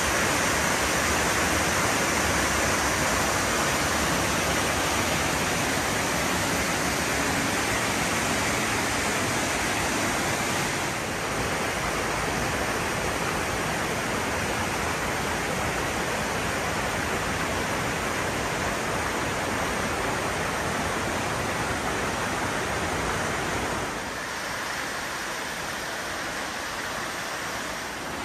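Steady rushing of a waterfall, a continuous hiss of falling water. It drops a little in level about eleven seconds in and again a few seconds before the end.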